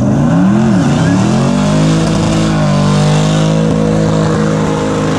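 Ford Crown Victoria police car's V8 doing a burnout. It is blipped up and down, then held at high revs with the rear tyres spinning from about a second and a half in.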